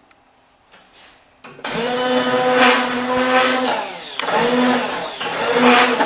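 Handheld immersion blender switched on about a second and a half in, after a few light handling clicks; its motor note dips and surges as it chops boiled onions and celery in water in a saucepan.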